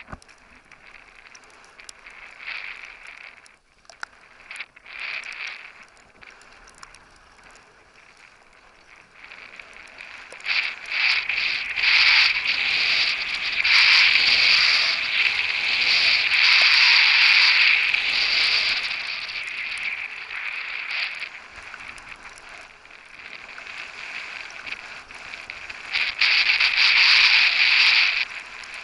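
Skis sliding and carving down a packed-snow piste: a scraping hiss, soft at first, that grows loud about ten seconds in, eases off after about twenty seconds and swells again near the end.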